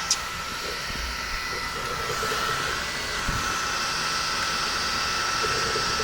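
3D printer running mid-print: its cooling fans whir steadily with a constant high whine, and short low warbling tones come and go as the motors move. A sharp click right at the start.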